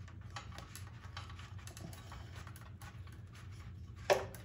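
Faint irregular clicks and scrapes of push-on wire connectors being rocked up and down to work them off a Harvest Right freeze dryer's relay board, with a louder click about four seconds in.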